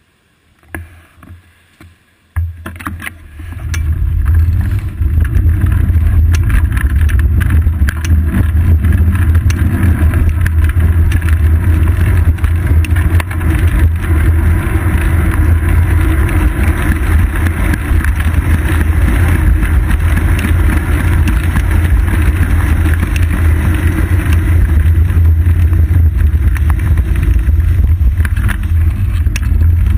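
Wind buffeting and road rumble on a bicycle-mounted action camera as the bike gets moving, starting about two seconds in and then staying loud and steady.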